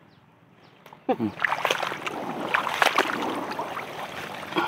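Water splashing and plants rustling, with many sharp snaps, as water spinach is picked by hand from the water, starting about a second in. A short falling vocal sound comes just before the splashing.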